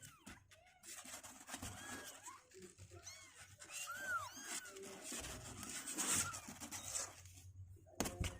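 Two-week-old kittens mewing: a string of short, high mews, each rising and falling in pitch, over rustling, with a sharp knock near the end.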